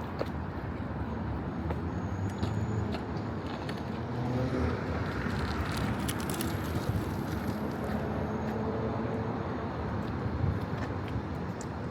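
City street traffic: cars running past in a steady rumble with engine hum.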